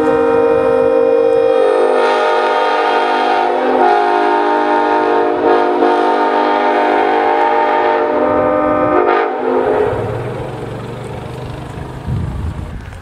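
Nathan Airchime K5HLA five-chime locomotive air horn, mounted on a pickup truck, blowing one long loud chord that cuts off about ten seconds in. The chord shifts slightly near the start as a note drops out.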